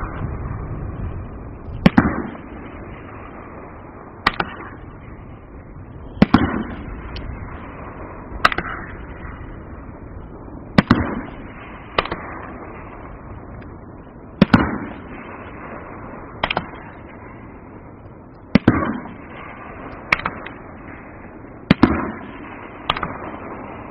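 A 16-shot, 3-inch-calibre aerial firework cake firing: about a dozen sharp, loud bangs roughly every two seconds, each trailing off in an echoing rumble and crackle.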